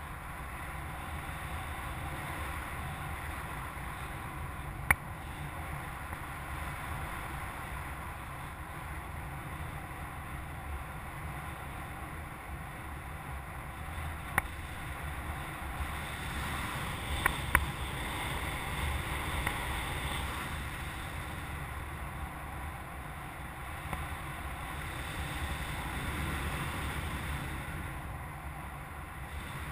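Steady rush of air over a North Wing Freedom 170 hang glider and its camera in flight. There are sharp clicks about five seconds in and near the middle, then a quick pair shortly after.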